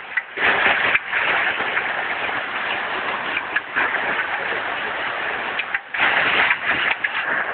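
Heavy hailstorm: hailstones and rain pelting down as a dense, loud hiss full of sharp ticks of hail striking, dropping briefly near the start and again about six seconds in.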